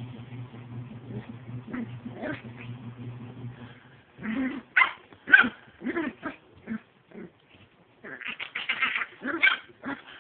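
Dog play-fighting: a low steady growl for the first few seconds, then a string of short barks and yips from about four seconds in, bunching into rapid barking near the end.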